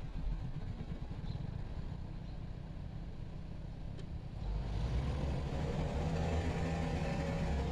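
Vespa scooter engine idling with a low rumble, then opening up and pulling away about halfway through, growing louder and steadier.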